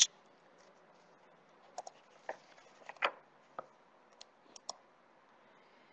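A scatter of faint, short clicks and ticks over a low steady hiss, about nine of them at irregular spacing, starting a little under two seconds in.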